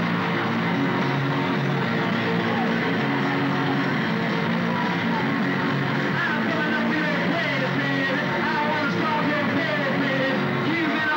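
Rock band playing live, with electric guitars and drums and a singer's voice over them.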